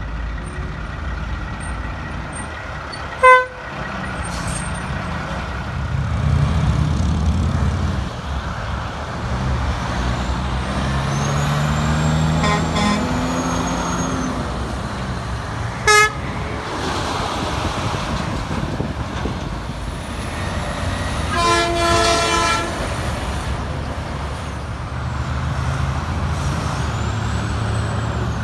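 Diesel semi trucks passing and pulling away, engines revving up through the gears. Two short, sharp horn beeps come about 3 s and 16 s in, and a longer, multi-note horn blast sounds about 22 s in.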